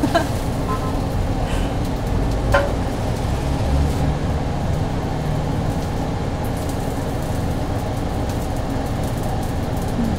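Steady low rumble of a commercial kitchen's ventilation and equipment running, with a few brief clinks and knocks, the sharpest about two and a half seconds in.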